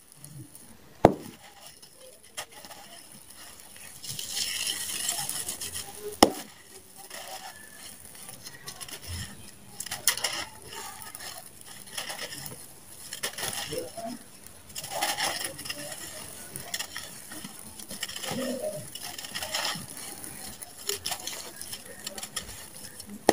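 Dry sand-cement lumps with small stones crumbled and crushed in bare hands: gritty crunching in waves, with grit and pebbles trickling down onto the pile. Sharp cracks come about a second in and again around six seconds.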